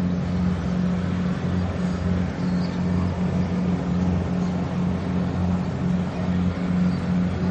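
A steady low engine drone with a slight pulsing beat in its tone.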